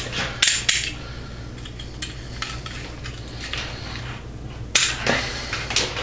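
Wire cutters snipping through the thin wires of an LED light kit at its battery pack: a few sharp snips in the first second, then more clicks and rattles of the tool and wires near the end, over a low steady hum.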